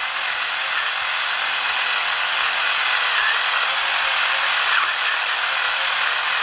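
Flafster battery-powered electric pepper grinder running steadily, its small motor grinding peppercorns on a coarse setting.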